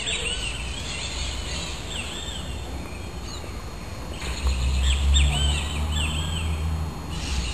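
Dawn chorus of several songbirds calling and singing: repeated short, rising-and-falling whistled chirps, thickest in the first two seconds and again from about four seconds in. Under them runs a steady low rumble that grows louder in the middle.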